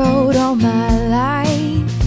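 Background music: a melody sung with gliding, wavering pitch over steady accompaniment.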